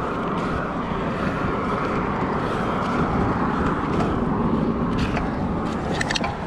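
Steady noise of road traffic, swelling a little in the middle as a vehicle goes by, with a few light clicks near the end.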